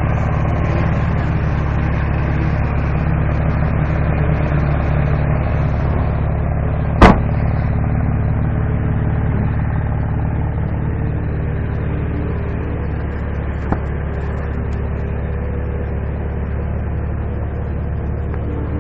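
Car engine running steadily with a low, even drone. A single sharp, loud click about seven seconds in, and a faint tick about halfway between that and the end.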